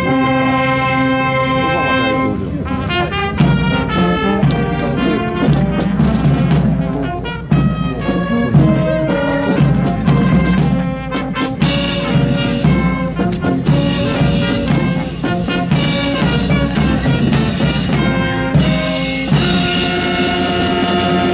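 Military brass band playing ceremonial honours music during a salute. It opens on a held chord, moves through quicker melodic passages, and settles on another held chord near the end.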